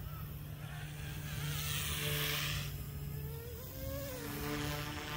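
Goosky S2 electric RC helicopter flying at a distance: a steady hum from its motors and rotor blades, its pitch wavering as it manoeuvres, with a brief rise of hissing noise about two seconds in.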